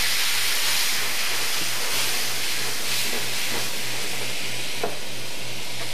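White wine sizzling and hissing as it hits a hot pan of melted butter, lemon zest and capers, sending up steam while it starts to reduce. The hiss is loudest at first, with a few small pops.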